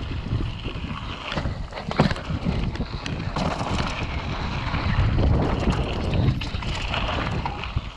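Wind buffeting an action camera's microphone as a downhill mountain bike rolls fast over a dirt and gravel track, with tyre and frame rumble and a few sharp knocks and rattles from bumps, the loudest about two seconds in.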